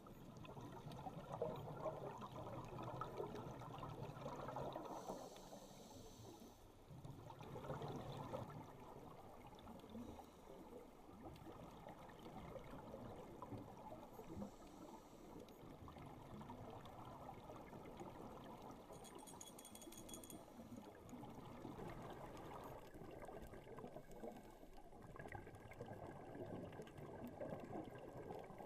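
Faint, muffled underwater sound picked up by a GoPro camera in its waterproof housing during a scuba dive. A steady low water rush swells louder in the first few seconds and again about eight seconds in.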